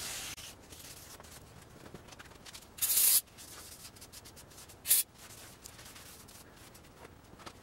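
Aerosol can of brake cleaner sprayed in two short hisses, about three seconds in and again about five seconds in, with faint rag-wiping on the mill table between them.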